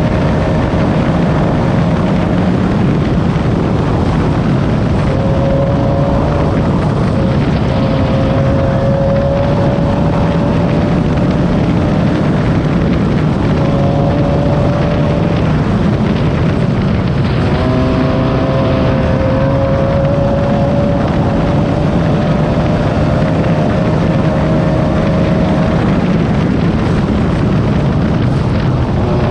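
Class 9 off-road race car running at race speed: a loud, steady din of engine and driving noise, with the engine note wavering up and down as the throttle changes.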